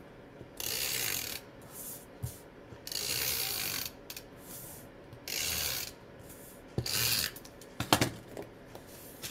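Adhesive tape runner drawn across paper in four separate strokes, each a short rasping hiss with a faint ratcheting click, followed by a few sharp clicks near the end.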